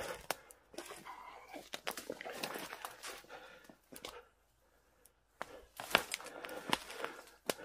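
Footsteps crunching through dry fallen leaves and brushwood, with twigs snapping and branches scraping against clothing, uneven and crackly, with a pause of about a second halfway through.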